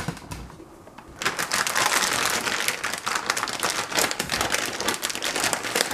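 Plastic bag of cucumbers crinkling as it is handled, a dense crackle that starts about a second in.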